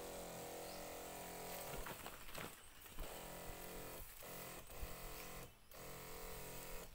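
Electric pump of a battery-powered knapsack sprayer humming steadily while it sprays, with a few brief dips.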